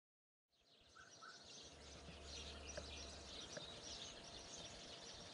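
Faint outdoor ambience with small birds chirping, fading in after about half a second of silence, with a few faint clicks.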